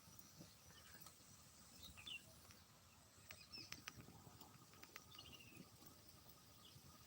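Near silence: faint open-field ambience with a few brief bird chirps and scattered faint clicks.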